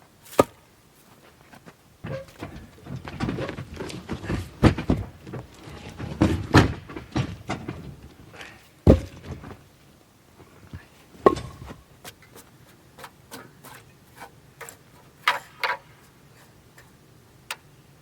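Irregular knocks, thumps and clatter of objects being handled, with single loud thumps near the start and about 9 and 11 seconds in, and a busier stretch of knocking in between.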